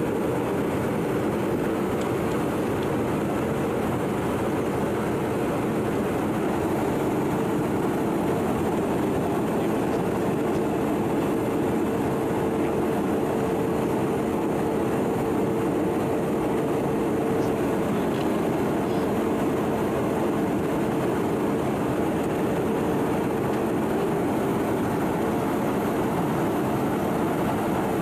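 Steady in-flight jet aircraft noise: an even rushing drone of engines and airflow with a steady hum running under it.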